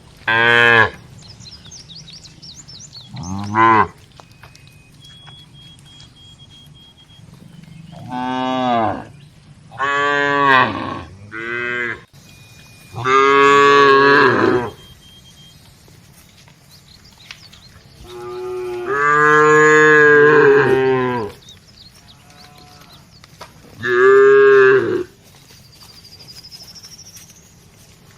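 A herd of cattle mooing, one call after another: about eight loud moos at differing pitches, most around a second long and one drawn out for about three seconds past the middle.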